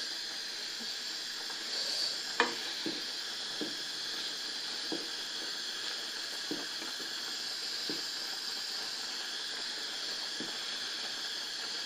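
A pot of pasta at a rolling boil, bubbling and hissing steadily, while a wooden spoon stirs it with a few light knocks.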